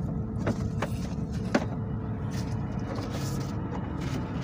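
Bus interior noise: a steady low rumble from the engine and running gear with a faint steady hum, broken by a few sharp knocks and rattles in the first couple of seconds.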